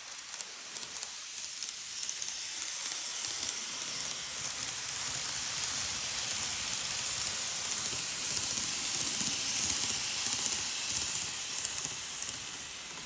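N-gauge model train running on the track: a steady, hissing rolling noise with a faint low motor hum, swelling toward the middle and easing near the end as it passes.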